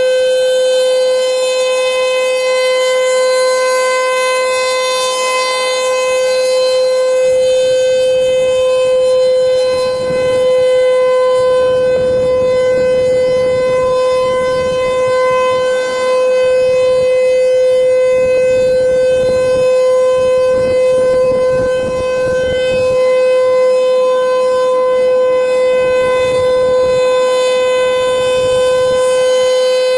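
Civil defense tornado siren sounding a steady alert tone for a test: one held, unwavering pitch with overtones, its loudness dipping slightly about every six seconds.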